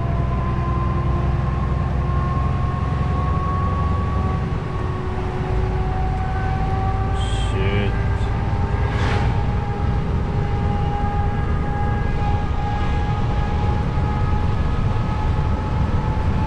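DAF truck's diesel engine and road noise heard inside the cab while driving: a steady drone whose pitch slowly shifts, with a short knock about nine seconds in.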